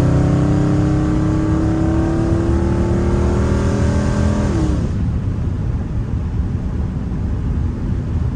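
Dodge Charger Scat Pack's 392 (6.4 L) HEMI V8 pulling under throttle, heard from inside the cabin, its note slowly rising in pitch. About four and a half seconds in the engine note drops away, leaving steady road and tyre noise.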